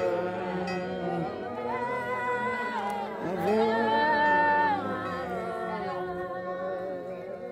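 Unaccompanied singing by voices without instruments, with notes held and sliding. It is loudest on a long held note about halfway through.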